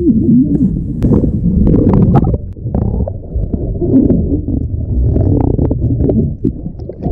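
Strong wind buffeting the camera microphone, a loud low rumble, with a few short sharp knocks or splashes between about one and two and a half seconds in.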